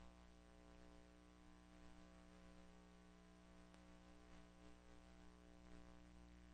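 Near silence: a steady electrical hum with faint hiss, from the VHS copy of a silent home movie.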